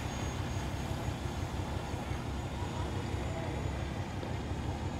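Steady low rumble of idling vehicle engines over even outdoor background noise, with no distinct event.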